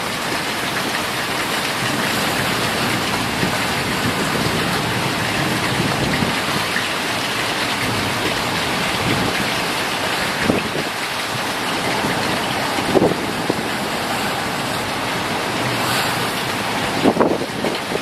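Typhoon wind and heavy rain: a steady rush of driving rain and wind, with a few gusts buffeting the microphone near the end.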